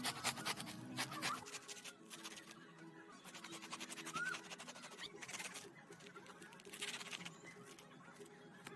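Faint background music, with a few short bursts of rapid clicking or scratching and a brief rising chirp.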